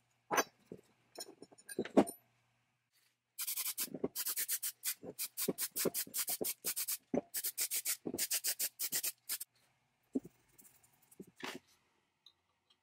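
Aerosol can of paint stripper making a fast run of short, sharp bursts, about five a second, lasting some six seconds. It follows a few light clicks of small metal parts being handled, and another click comes near the end.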